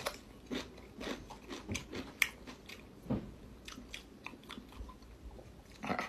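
A bite into a raw cucumber followed by chewing, heard as irregular crisp crunches about every half second.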